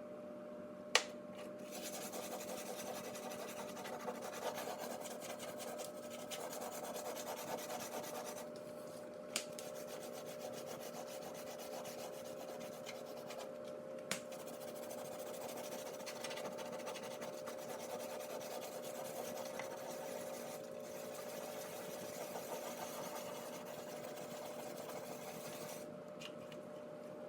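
A Finish Powerball dishwasher tablet scrubbed back and forth against greasy oven door glass: a continuous scratchy rubbing that pauses briefly a few times. A few sharp clicks come through, the loudest about a second in, over a faint steady hum.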